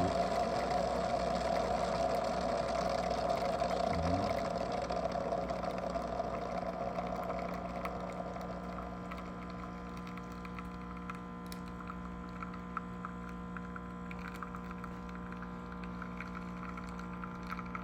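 JURA Impressa C9 super-automatic espresso machine running a brew cycle for a double espresso: a steady mechanical hum that drops in level after about five seconds and carries on more quietly, with light ticks in the second half.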